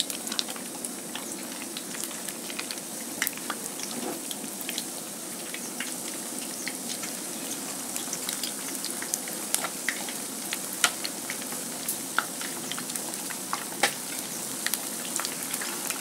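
Flour-coated fish pieces deep-frying in hot oil in a frying pan: a steady sizzle with frequent sharp crackles and pops of spitting oil.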